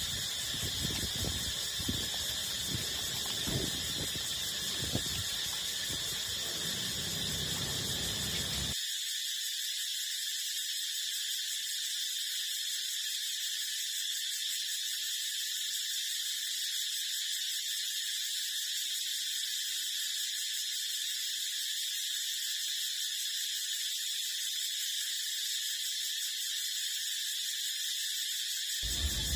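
Puppies suckling at their mother's teats, making short irregular smacking and sucking noises for about the first nine seconds. A steady high-pitched drone runs throughout, and after the suckling noises stop it is the only sound left.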